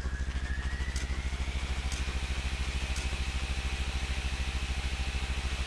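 Low, rapidly pulsing engine-like drone, with a thin whine that rises over the first few seconds and then holds, and a faint tick about once a second.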